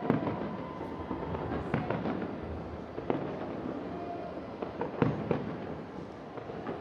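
Fireworks display heard from far off: a continuous rumble of shell bursts with sharp bangs, the loudest right at the start and again about five seconds in.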